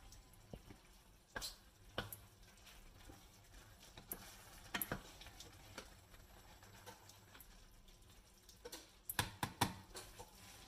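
Faint, scattered clicks and scrapes of a spoon against a pot of cooking risotto, with a quick run of several taps near the end.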